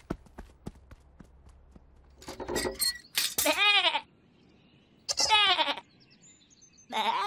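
A cartoon lamb's voiced bleats: two short bleats that rise and fall in pitch, a second or so apart, and a third starting near the end. Before them, light ticking steps sound about three times a second.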